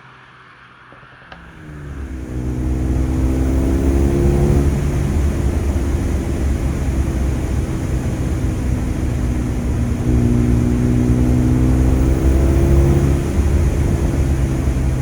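Mercedes-AMG A35's turbocharged 2.0-litre four-cylinder engine pulling under acceleration. After about two quieter seconds it comes in loud and climbs in pitch. It steps down slightly in pitch near five seconds in, then pulls on steadily and rises again in the second half.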